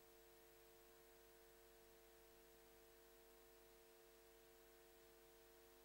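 Near silence: a faint steady hum and hiss.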